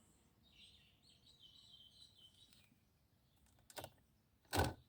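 Faint bird chirping in the background, followed near the end by two short sharp clicks, the second louder.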